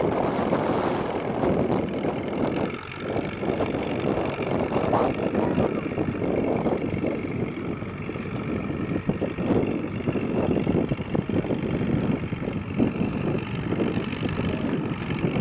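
Massey-Harris 44 tractor engine running steadily, with an unbroken rough drone.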